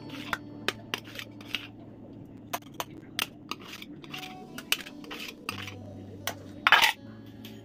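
Steel spoon scraping and clinking against a stainless steel idli stand and a steel kadai as idlis are lifted out: a string of short metallic clicks, the loudest near the end.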